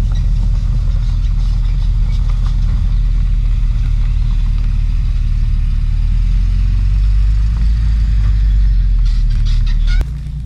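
A steady low engine rumble that cuts off suddenly near the end.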